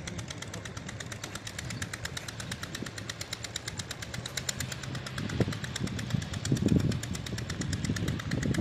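A small engine runs with a rapid, even knocking beat, several pulses a second. A few louder low thumps and rumbles come in over it in the second half.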